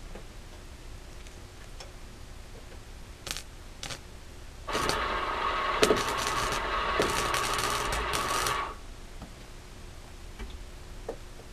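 Wire-feed welder arc crackling and sputtering for about four seconds, starting near the middle and cutting off sharply, after two short clicks. The welder has just been repaired after bad wire and wrong feed tension, and the owner says that fixed it.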